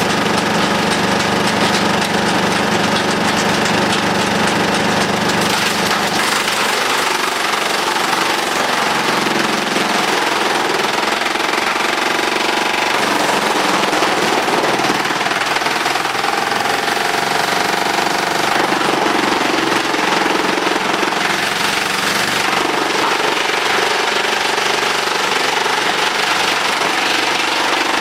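Demuth mobile drum chipper running, driven through the PTO by a wheel tractor: a loud, steady mechanical clatter of drum and engine. A deep low hum drops away about six seconds in, leaving the higher, rattling machine noise.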